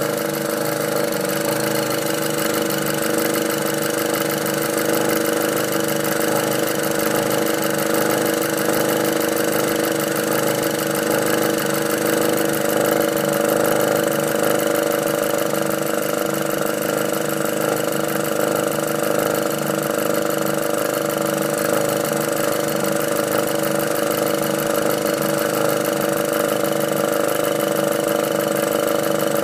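Volkswagen Golf R's 2.0-litre turbocharged four-cylinder engine idling steadily with a fast, even ticking over it. This is the noise the owner noticed after installing an oil catch can.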